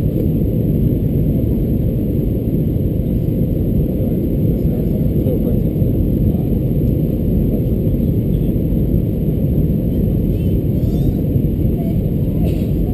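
Steady low rumble of an Airbus A320-214 in flight on approach, engine and airflow noise heard inside the passenger cabin.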